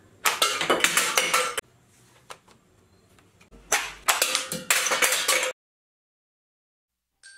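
Empty aluminium soda cans shot off a stacked pyramid and clattering down onto a table, in two bouts: one starting just after the start and lasting about a second and a half, and a longer one from about three and a half seconds in.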